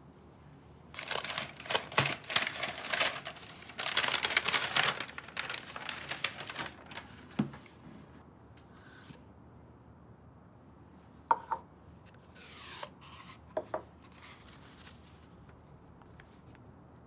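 Paper gift wrapping rustled and torn off a cardboard tube, in two bouts of crinkling, followed by a few light knocks and a short rubbing slide of paper against cardboard as the tube is opened.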